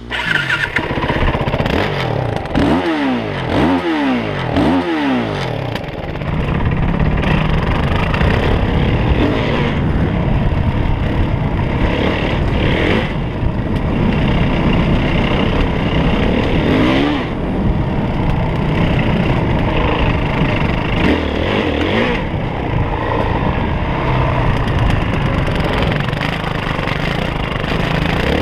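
Yamaha WR450F single-cylinder four-stroke dirt bike engine revved in three quick blips a few seconds in, then running under changing throttle as the bike is ridden.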